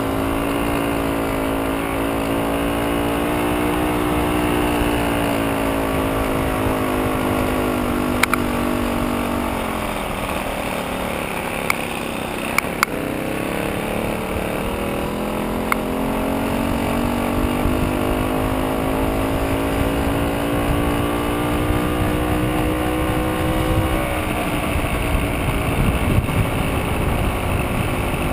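VeloSoleX moped's small two-stroke engine running under way with a steady buzz. Its pitch sinks as it slows about ten seconds in, climbs again over the next ten seconds and eases off near the end. A few sharp clicks come around the low point.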